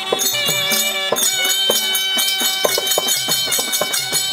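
Therukoothu accompaniment music for a dance: even drum strokes and jingling cymbals under a held, steady melody line.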